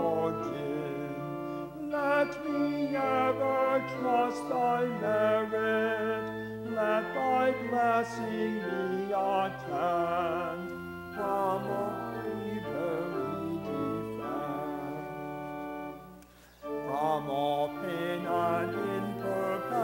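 A hymn sung with instrumental accompaniment, with a brief break about 16 seconds in before the music picks up again.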